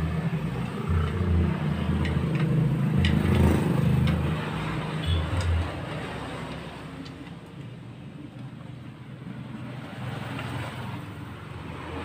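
A motor vehicle engine running, loudest in the first half and fading after about six seconds, with a few light clicks.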